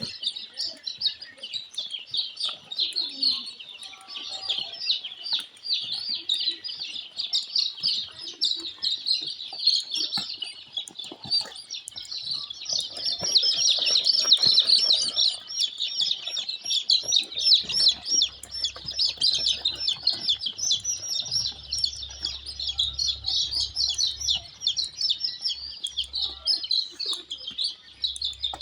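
A brood of brown layer chicks peeping: many short, high calls overlapping without a break.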